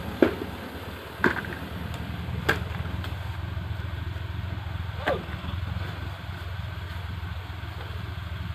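Heavy diesel engine idling steadily with a low, even rumble, broken by four sharp metallic knocks in the first five seconds.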